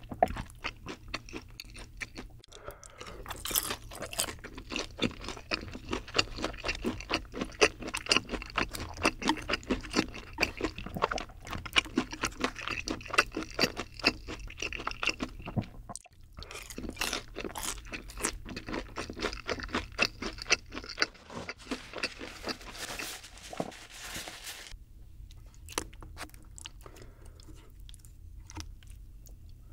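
Close-miked chewing of sauced boneless spicy fried chicken dipped in cream sauce: dense crunching with wet, sticky mouth sounds. It pauses briefly about halfway and grows quieter and sparser near the end.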